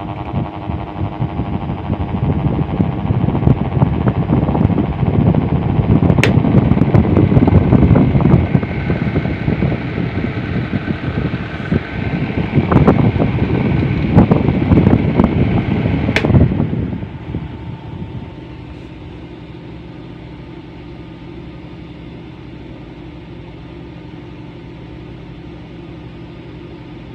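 Electric fan running noisily, with a rough rattling rumble and a faint wavering whine that sounds like crying, plus a few sharp clicks. About two-thirds of the way through it drops to a steadier, quieter hum.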